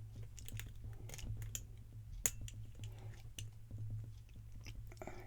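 Lock pick and tension wrench working the pins of a Guard 365 padlock: a run of small irregular clicks and scrapes, with one sharper click a little past two seconds in. A steady low hum sits under it.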